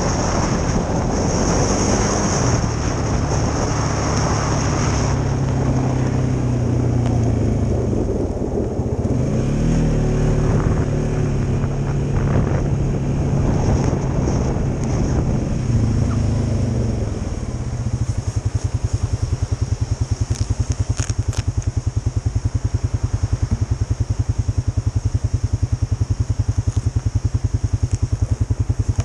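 Polaris Sportsman 570 ATV's single-cylinder engine running under throttle, its pitch rising and falling as the quad is ridden. A little past halfway it settles into a steady, evenly pulsing idle.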